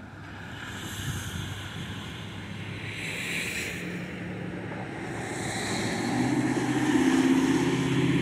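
Road vehicles passing on wet pavement, their tyres hissing through the water in swells. An engine hum builds over the last couple of seconds as another vehicle approaches.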